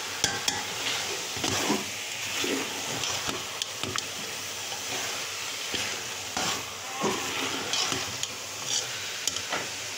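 Grated-carrot halwa being stirred and roasted in a metal pot with a spatula: steady frying sizzle with irregular scrapes and knocks of the spatula against the pot. The liquid has cooked off, so the halwa is at its dry roasting stage.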